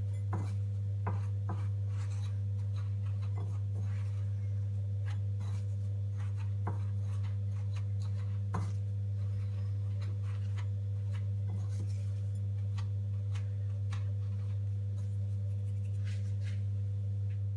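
A steady low hum, with faint scattered crackles and taps of breadcrumbs being pressed by hand onto an egg-coated tortilla cone.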